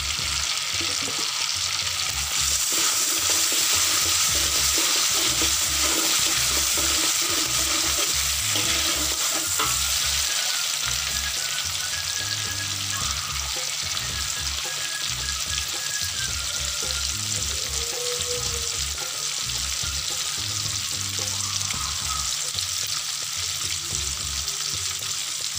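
Chilli paste and shallots sizzling in hot oil and margarine in a steel wok, with a metal spatula stirring and scraping. The sizzle grows louder about two seconds in and then holds steady.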